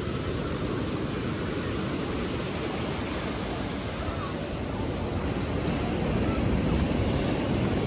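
Steady rushing noise of wind and sea, with wind buffeting the microphone, getting a little louder about six seconds in.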